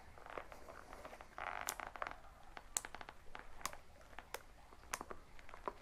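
Plastic pour nozzle being pressed and screwed into the threaded spout of a fabric fuel bladder: faint, scattered plastic clicks, with a short scraping rustle about a second and a half in.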